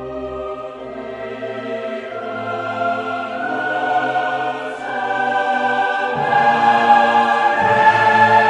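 Classical choral music: a choir singing long held notes that swell louder toward the end.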